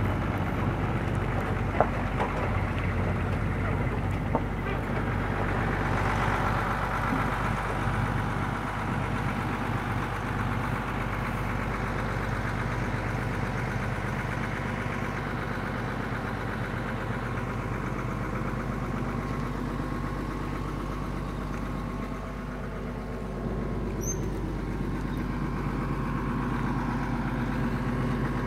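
Excavator's diesel engine running steadily, with two short sharp clicks about two seconds and four seconds in.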